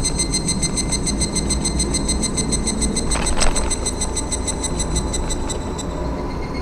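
Suzuki Every kei van driving, heard from inside the cabin: a steady low road and engine rumble. Thin high-pitched tones pulse evenly over it, and a brief squeak rises about three seconds in.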